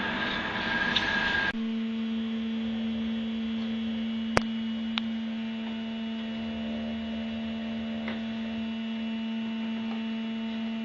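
A noisier machine sound cuts off abruptly about a second and a half in, leaving a steady electrical or mechanical hum with a higher overtone. A sharp click comes about four seconds in, and a fainter one shortly after.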